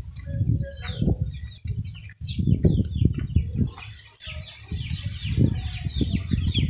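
Wind buffeting the phone's microphone in irregular gusts, with scattered bird chirps. From about four seconds in comes a quick run of short, high, falling peeps, typical of young chicks.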